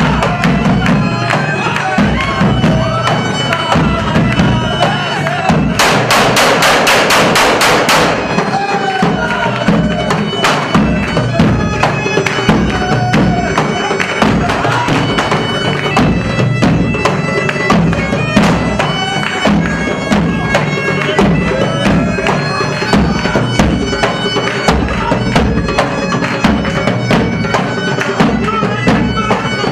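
Arab wedding zaffe music: large double-headed drums beaten in a steady rhythm under a loud, piping reed melody. A burst of rapid rattling lasts about two seconds, starting about six seconds in.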